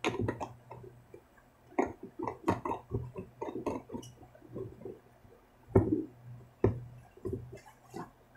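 Irregular plastic clicks and knocks as a large Elmer's Glue-All bottle is handled and its orange cap worked open, over a steady low hum.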